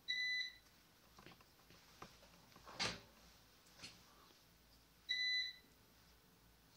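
Two short electronic beeps from a digital multimeter, each about half a second long and about five seconds apart. Between them come a brief rustle and a few faint clicks of wires and a switch being handled.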